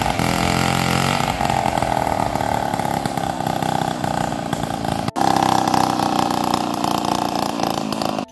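Two-stroke chainsaw running hard while sawing through wooden boards; its pitch slides down in the first second, then holds steady. It drops out for an instant about five seconds in.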